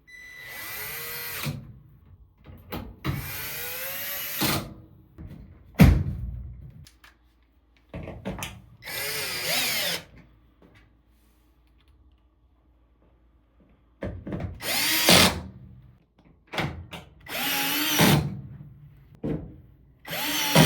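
Power drill driving screws in short runs, its motor speeding up and slowing with each screw, about six runs with pauses between. A sharp knock about six seconds in.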